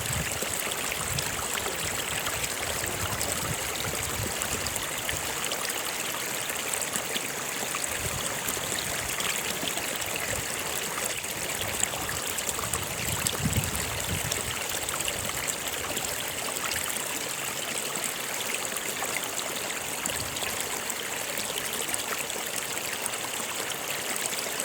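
Steady rushing and trickling of a flowing stream.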